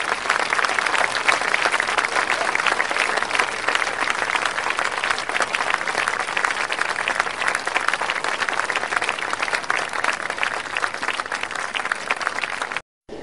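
Audience applauding: a dense, even mass of clapping that holds steady and then cuts off suddenly near the end.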